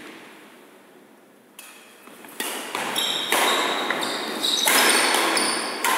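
Badminton doubles rally on a wooden indoor court: sharp racket hits on the shuttlecock and short high squeaks of shoes on the floor. It starts quietly and becomes much louder and busier after about two seconds.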